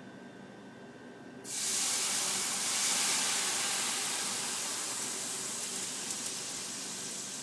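Cognac poured into a hot skillet of steak drippings, deglazing it: a sudden loud sizzling hiss of steam about a second and a half in, slowly dying down.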